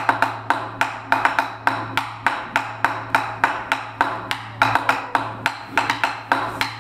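Sharp wooden clicks of taiko drumsticks at a steady pace, about four a second, opening a taiko piece.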